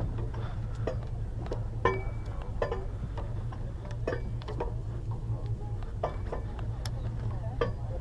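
The boat's engine gives a steady low hum. Over it come irregular light clicks and metallic clinks, about one or two a second, from gear knocking on deck.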